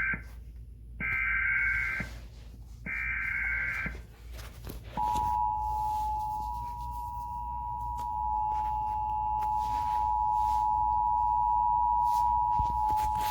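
Emergency Alert System digital header bursts: the end of one and then two more harsh, warbling data squawks about a second each. After a pause of about a second comes the steady two-tone EAS attention signal, held for about eight seconds until it cuts off.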